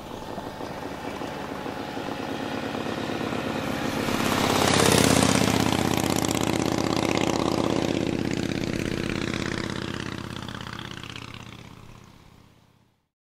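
Harley-Davidson motorcycle's V-twin engine passing by: the sound builds up, is loudest about five seconds in, then fades away and is gone near the end.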